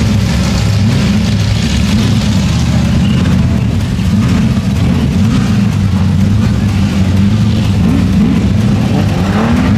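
Car engine idling steadily with a deep, even rumble.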